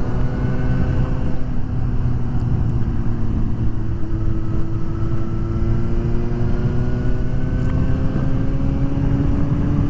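Suzuki GSX-S750 inline-four motorcycle engine running at a steady cruise under wind and road noise, its note rising slowly through the second half as the bike gently gains speed.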